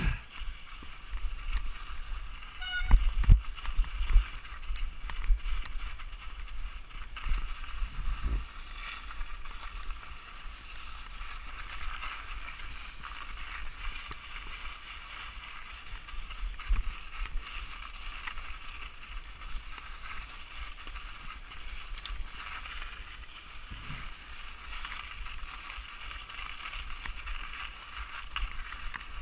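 Mountain bike riding a rocky, frosty trail: steady tyre rolling and rattle noise with wind buffeting the microphone. Heavy low knocks from bumps come about three to four seconds in and again near eight seconds.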